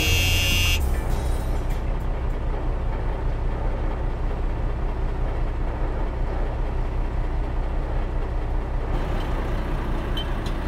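A motor vehicle's engine running steadily with a low, even rumble, after a short end of music in the first second. Near the end the sound brightens.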